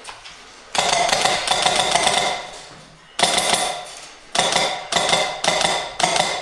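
CYMA MP5K airsoft electric gun (AEG) firing on full auto: one long burst of about a second and a half, then four short bursts in quick succession near the end, with the gearbox whining steadily through each.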